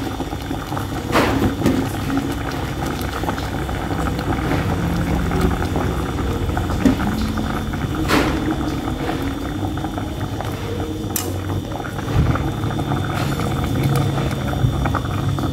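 Water boiling in an aluminium pot, a steady bubbling. A few sharp clinks of metal tongs against the pot come as pieces of boiled young jackfruit are lifted out.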